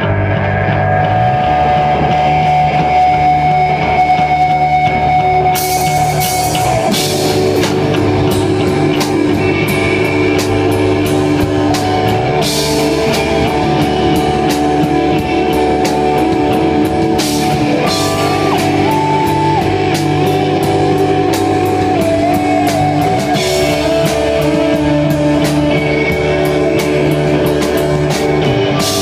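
Indie rock band playing live: electric guitars and bass guitar hold sustained notes, and the drum kit comes in with cymbals about five seconds in.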